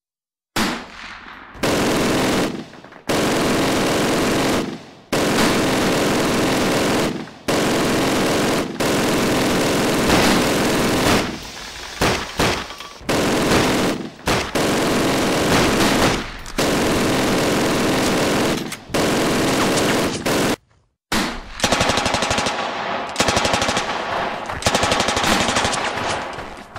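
Battle sound-effect of machine-gun fire in long bursts, starting about half a second in, with short breaks between bursts. After a brief silence about three-quarters of the way through, the fire continues as sharper, separate shots in quick succession.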